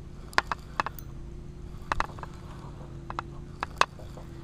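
Spinning reel being cranked to bring in a hooked bass: irregular sharp clicks and knocks, about eight of them, over a faint steady hum.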